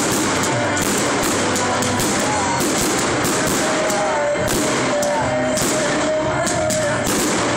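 Loud music with a regular beat, with aerial fireworks shells bursting and crackling. A held melody line comes in about halfway through.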